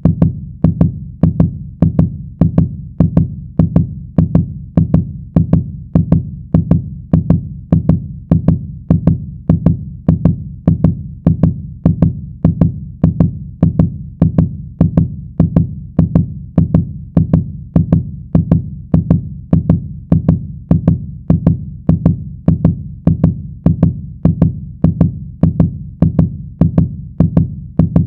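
A fast heartbeat sound effect played very loud: a steady run of deep, evenly spaced beats, about two a second.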